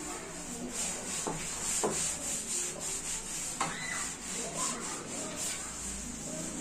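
Cloth wiping the stainless-steel duct of a kitchen chimney hood: a repeated rubbing hiss, one swish per stroke, with a few light knocks against the hood.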